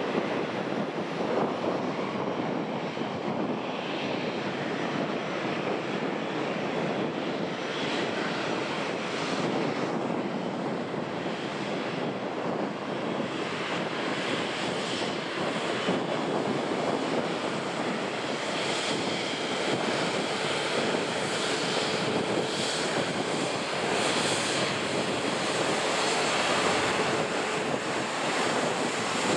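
Jet airliner engines running: a steady, continuous rush with faint whining tones, growing slightly louder in the last few seconds.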